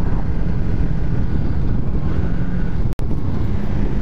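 Motorcycle engine running at a steady pace under constant wind rush on the camera microphone while riding. There is a split-second drop to silence just before three seconds in.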